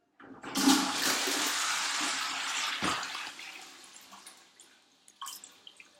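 Toilet flushing: water rushes into the bowl about half a second in, with a knock near three seconds, then dies down to trickling and drips as the cistern refills.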